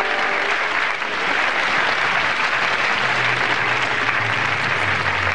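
Studio audience applauding steadily, with a low droning tone joining about three seconds in.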